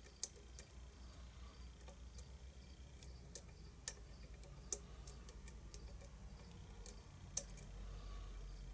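Faint, irregular small metallic clicks and ticks of a hook pick and tension wrench working the pin stack inside a tight-keyway challenge lock, with a low steady hum underneath.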